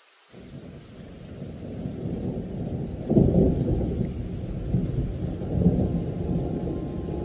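A deep, noisy rumble fading in from silence, swelling sharply about three seconds in and again more weakly later, like thunder with rain beneath it.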